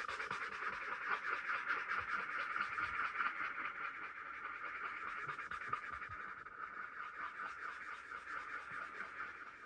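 Paper blending stump rubbed over graphite on hot-pressed paper, a steady fine scratching made of many rapid small strokes, a little quieter in the second half.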